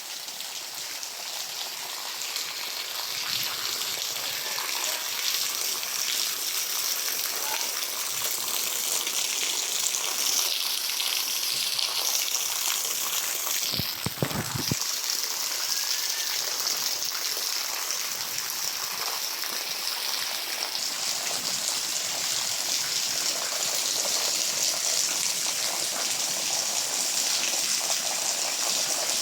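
Heavy rain falling steadily, an even hiss, with a brief low thump about halfway through.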